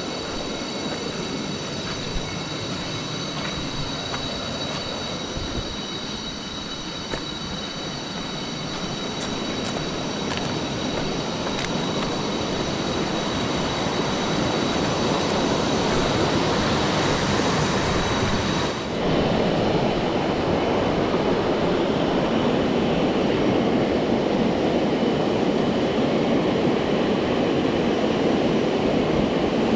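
Rushing water of a river rapids, a steady loud rush with a thin high ringing layered over it. The sound cuts abruptly about two-thirds of the way in, after which the rush is louder and deeper and the high ringing has largely gone.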